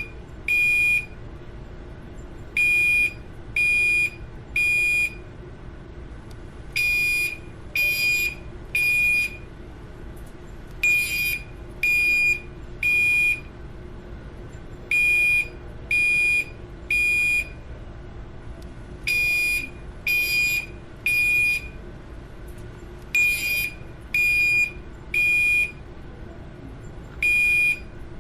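Building fire alarm horn sounding in the temporal-three evacuation pattern: three high beeps of about half a second each, a pause of about a second and a half, and the group repeating every four seconds. This pattern is the standard signal to evacuate the building.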